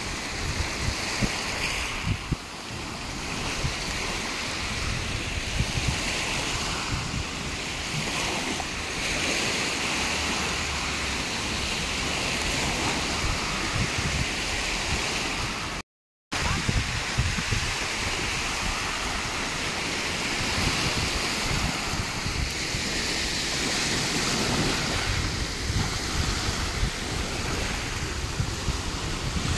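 Small waves breaking and washing up on a gravelly beach, with wind buffeting the microphone. The sound cuts out for a moment about halfway through.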